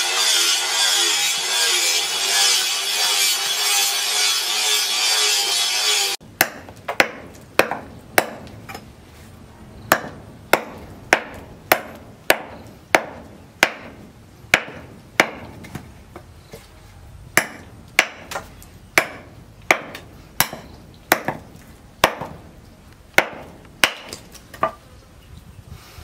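Background music for about the first six seconds, then it cuts off suddenly to a small hatchet chopping and shaving a wooden knife-handle blank on a wooden block: a steady run of sharp wooden chops, roughly one and a half a second.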